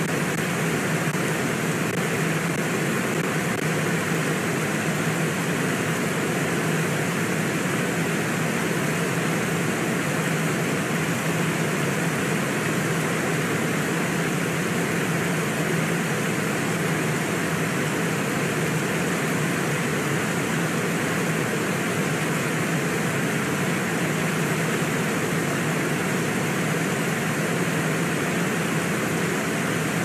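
Steady rush of a fast-flowing river, an even noise that does not change, with a low steady hum beneath it.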